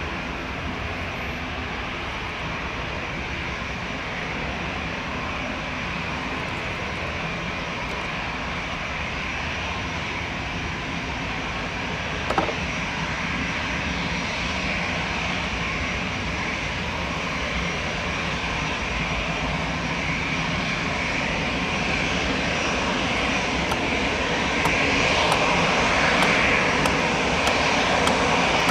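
Jet engines of a Vueling Airbus A319 running, the noise slowly growing louder, with a higher whine building strongly near the end. One sharp click sounds about twelve seconds in.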